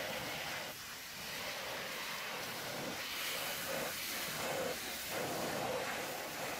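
Hot-water pressure washer jet hissing steadily as it blasts grease off a semi truck's steel fifth-wheel coupling, dipping briefly about a second in as the spray shifts.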